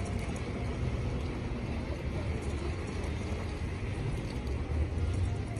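Steady low rumble of outdoor background noise, with a few faint light clicks.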